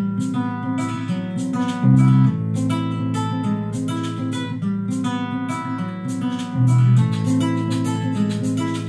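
Acoustic guitar music with a steady plucked and strummed rhythm, played back through a homemade three-transistor amplifier and its speaker. Two louder low bass notes come about two seconds in and near the end.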